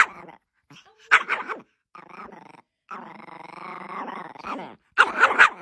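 A dog vocalizing on cue, 'talking' back: a few short growly yelps, then one long howl-like groan with a wavering pitch lasting about two seconds, then a loud run of bark-like yelps near the end.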